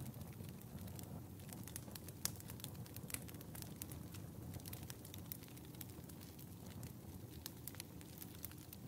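Wood fire burning in a fireplace, crackling with many irregular sharp pops over a low steady rumble of the flames; one louder pop about two seconds in.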